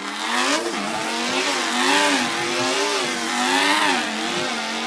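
A man's voice imitating a V8 pulling truck's engine at full throttle: one continuous engine note, its pitch rising and falling several times as if revving under load.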